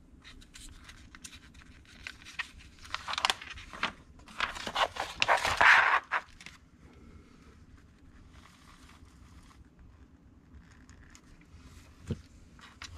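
Paper rustling and crackling as a page of a model kit's instruction booklet is turned and pressed flat by hand, loudest about five to six seconds in. Quieter handling follows, with a single soft tap near the end.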